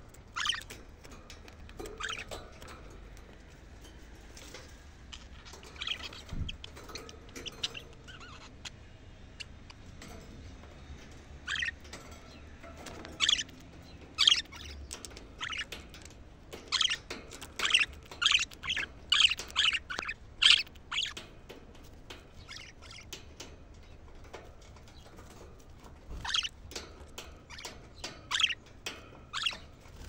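Budgerigars chirping in short, sharp calls, scattered at first, then coming thick and fast around the middle of the stretch and again near the end.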